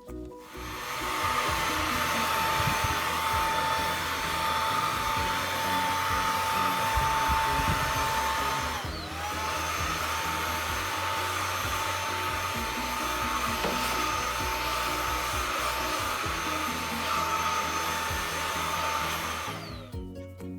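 Xiaomi Mi Handheld 1C cordless stick vacuum running with a steady high motor whine. It switches on about half a second in, dips and spins back up about halfway, and shuts off near the end.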